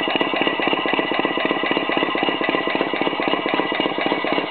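Home-built twin-cylinder marine steam launch engine (2 3/8 in bore by 2 in stroke) running on compressed air at 20 PSI instead of steam, with an even, rapid chuffing of exhaust beats.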